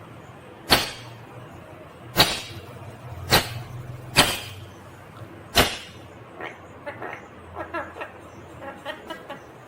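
Ringneck parakeet giving five sharp, loud, very short calls a second or so apart, followed by softer rapid chattering.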